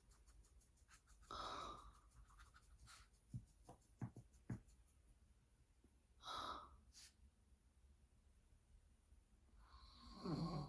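Slow, soft breathing of a woman dozing sitting up: three breaths about four to five seconds apart, the last one near the end louder and deeper. A few short soft clicks come between the first two breaths.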